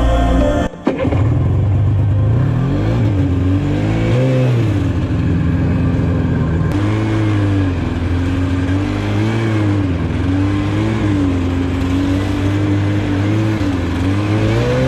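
Snowmobile engine running, its pitch rising and falling again and again as the throttle is opened and eased off.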